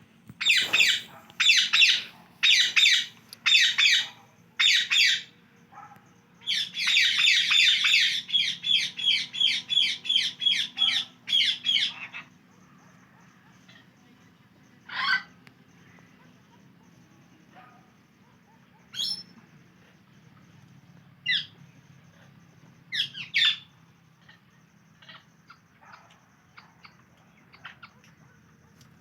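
Indian ringneck parrot calling: five loud calls about a second apart, then a quick string of calls, about three a second, until roughly twelve seconds in. After that come scattered single calls every few seconds, and a few faint ones near the end.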